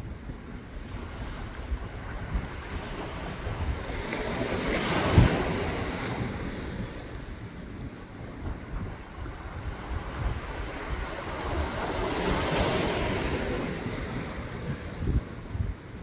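Sea waves washing in against concrete wave-breaker blocks, swelling into two surges, about five seconds in and again about twelve seconds in, with a sharp thump near the first surge. Wind buffets the microphone throughout as a low rumble.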